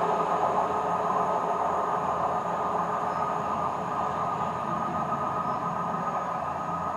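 East Midlands Railway diesel multiple unit running away on the line, a steady diesel engine drone with rail noise that slowly fades as the train recedes.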